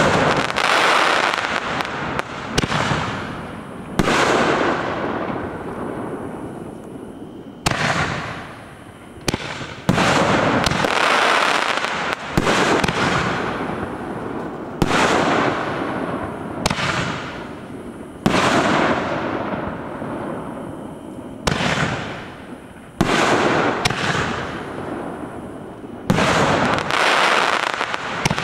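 Consumer aerial firework cakes firing shells in quick succession, with a sharp bang every one to three seconds. Each bang trails off in a hissing crackle of the bursting stars.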